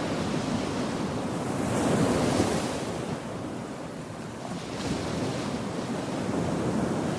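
Surf washing in and out on a beach, swelling about two seconds in, easing, then building again near the end, with wind buffeting the microphone.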